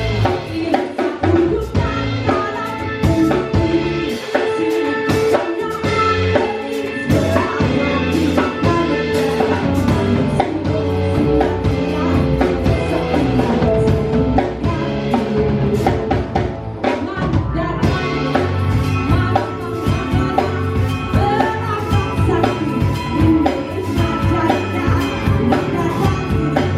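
A band playing a song, with a drum kit keeping the beat, other instruments and a singing voice.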